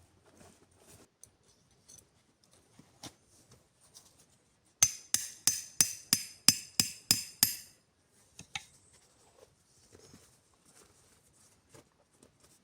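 Hammering: a quick run of about nine sharp strikes, about three a second, in the middle of the stretch, with faint handling clicks and rustles around it.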